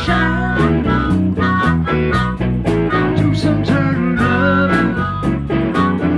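Live electric blues band playing an instrumental passage: blues harmonica wailing over electric guitar, bass guitar and a steady drum beat.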